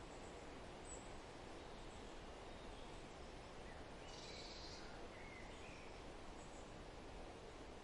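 Quiet, steady forest wind with a few faint, scattered bird chirps; a brief high bird call stands out about four seconds in.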